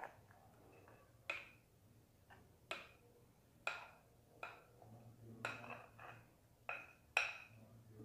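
Steel spoon clinking against glass as thick batter is scooped from a glass bowl and scraped into a plastic piping bag: several sharp, ringing taps at irregular intervals, about one a second.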